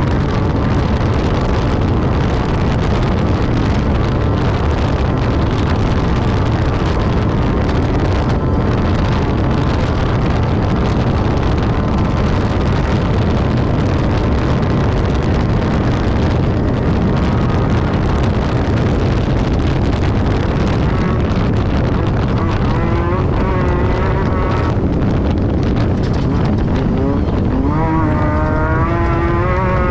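Class 10 desert race buggy engine running hard, a loud steady drone under heavy rumble and wind noise. The engine climbs audibly in pitch near the end.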